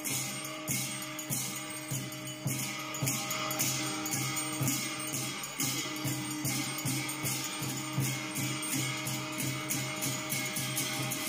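Buddhist ritual music: percussion with a jingling, rattling ring struck in a steady rhythm about twice a second over a low sustained drone.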